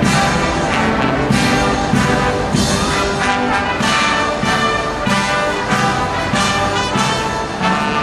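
Brass band playing a march, sustained brass chords over a steady drum beat of just under two strokes a second.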